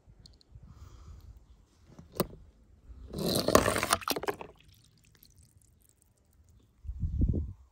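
A small die-cast toy car knocks onto a plastic chute, runs down it and splashes into water, with the splash about three to four seconds in as the loudest sound. A short low sloshing of water follows near the end.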